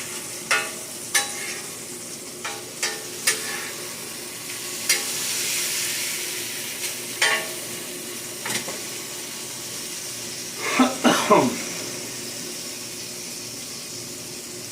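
Burger patties sizzling on a cast iron stovetop griddle, with sharp taps and clicks of a utensil against the metal. About eleven seconds in comes a short burst of louder squeaky scraping.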